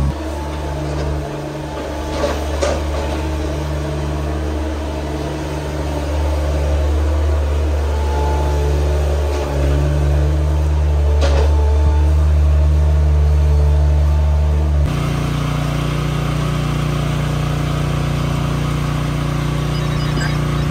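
Engine of a compact articulated loader running steadily with a low hum, with a few light knocks. About fifteen seconds in, the sound switches abruptly to a different steady machine hum.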